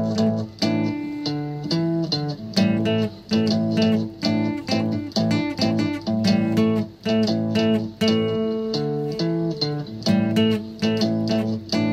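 Guitar music: chords strummed in a steady rhythm, about one stroke every two-thirds of a second, with the chord changing every few strokes.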